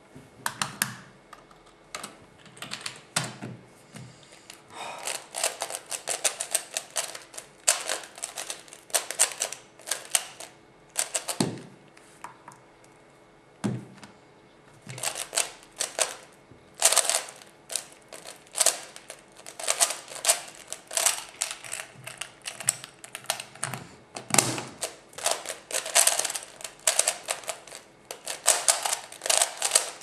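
An F-II 3x3 speedcube's plastic layers clicking and clacking as it is turned quickly by hand, in long dense runs of rapid turns. There is a pause in the middle with two low thumps.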